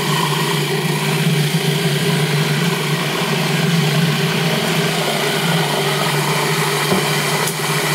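Food processor motor running steadily, blending a thick carrot-and-chickpea hummus purée while olive oil is drizzled in through the feed tube.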